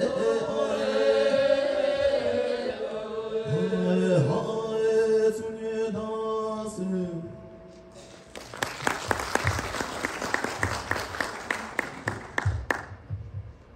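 Lhamo (Tibetan opera) singing in long, held notes that waver in pitch, ending about seven seconds in; then about four seconds of audience applause that stops shortly before the end.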